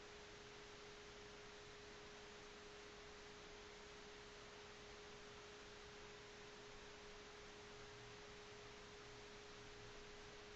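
Near silence: faint hiss with a steady, single-pitched hum.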